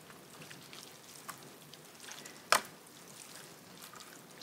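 Soup being stirred in a bowl with a utensil: faint liquid sloshing and small clicks, with one sharp click of the utensil against the bowl about two and a half seconds in.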